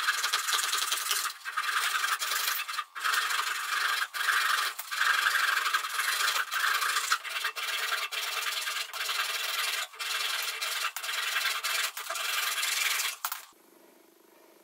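Flush-cut handsaw sawing off the protruding mahogany pins of a corner joint level with a pine board, in steady back-and-forth strokes about one a second. The sawing stops about a second before the end.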